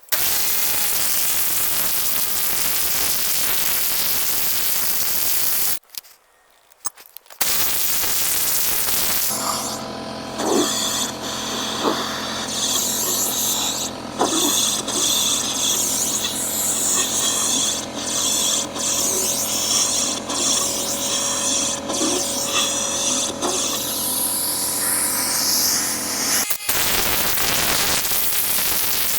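Cordless impact wrench driving concrete anchor bolts through an anchor plate: a steady motor sound with irregular knocking that starts about nine seconds in and stops a few seconds before the end. Before and after it there is a loud steady hiss, broken by a short dropout about six seconds in.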